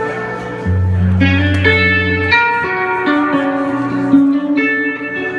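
Electric guitar played live, a red Stratocaster-style guitar, picking a melodic run of ringing, overlapping notes. A deep low note is held for about a second and a half near the start.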